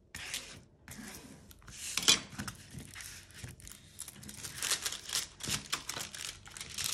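Plastic-film-covered diamond painting canvas crinkling and rustling as hands handle it and smooth it flat: a string of irregular crackles, the sharpest about two seconds in.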